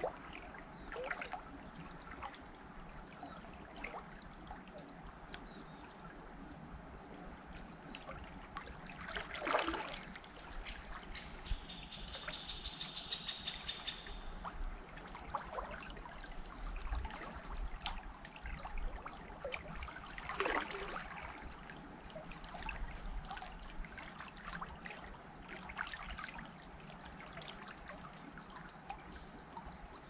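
River water trickling and splashing, with two louder splashes, one about a third of the way in and one about two-thirds in. Around the middle, a bird gives a brief high trill.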